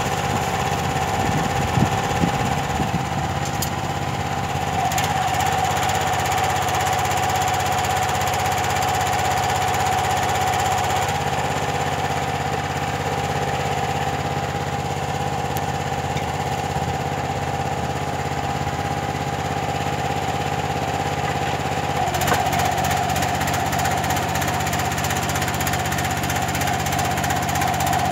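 The log splitter's 13 hp petrol engine running steadily, driving its hydraulic pump, with a steady whine over the engine note. The sound shifts about eleven seconds in and again about twenty-two seconds in, while the hydraulic lifting arm raises an oak log. A few knocks come about two seconds in.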